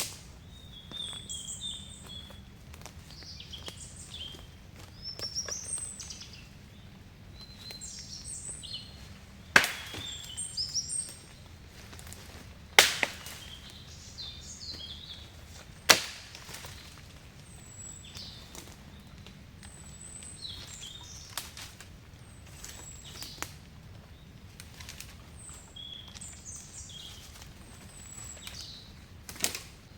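Forest birds chirping and calling on and off throughout. Three loud, sharp knocks come about three seconds apart near the middle, and another comes near the end.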